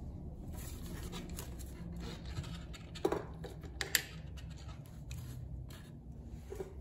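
Handling noise from a string trimmer's metal drive shaft and gearhead being worked by hand: small scrapes and clicks, with a louder scrape about three seconds in and a sharp click about a second later, over a steady low hum.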